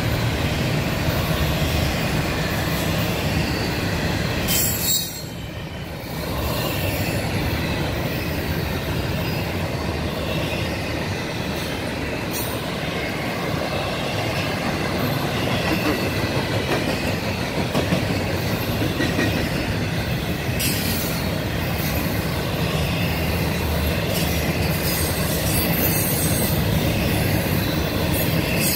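Double-stack intermodal freight train's cars rolling past: a steady rumble and clatter of steel wheels on rail, with a thin wheel squeal over it. The noise dips briefly about five seconds in.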